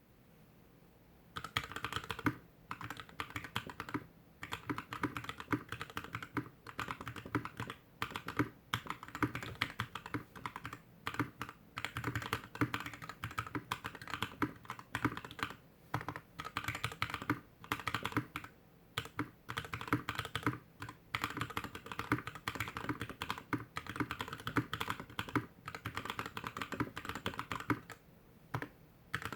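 Slow typing on a GK61X mechanical keyboard with stock Tecsee Blue Velvet linear switches, a stainless steel plate, plastic case and DSA keycaps, resting directly on a desk. Keystrokes come in runs with short pauses and start about a second in.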